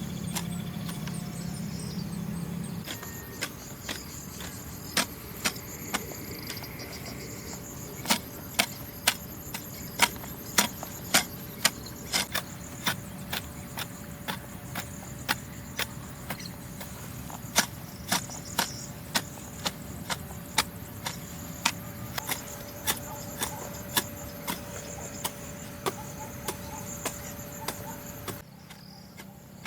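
A long series of sharp knocks, about two a second, some louder than others, over a steady high insect trill such as crickets. The knocks stop a little before the end.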